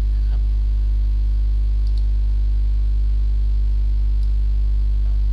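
Steady, loud electrical mains hum at about 50 Hz with a stack of evenly spaced overtones, carried on the recording, with a couple of faint clicks.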